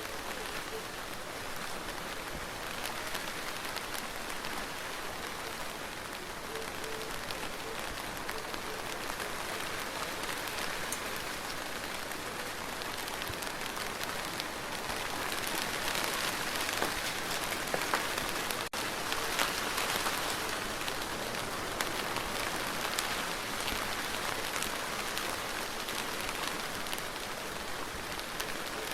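Steady rain falling on a surface, a dense hiss dotted with individual drops ticking close by. It grows a little heavier past the middle, with a momentary break about two-thirds through.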